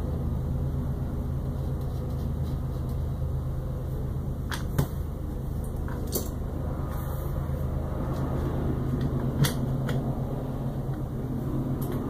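Scattered sharp clicks and small knocks of acrylic 3D-printer parts, M3 screws and nuts being handled and fitted together by hand, over a steady low hum. The loudest click comes about two-thirds of the way through.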